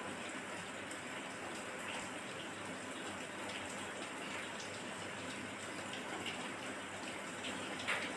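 Steady rain falling, a constant even hiss, with a few faint clicks over it and one brief louder knock near the end.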